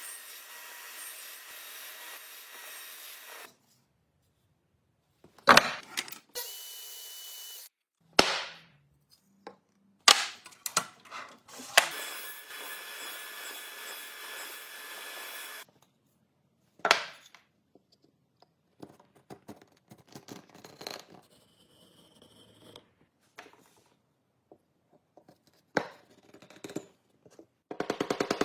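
Woodworking with hand or power tools: stretches of steady sawing or rasping on wood, broken by about five sharp knocks, with abrupt starts and stops.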